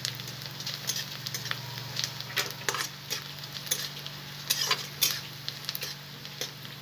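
A metal spatula scraping and stirring chopped onions frying in oil in a kadai: irregular scrapes and clicks against the pan over a steady sizzle as the onions lightly brown.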